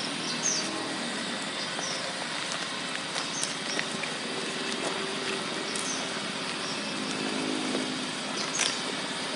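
Outdoor background noise: a steady hiss with the hum of distant motor traffic, and a few short high bird chirps scattered through it.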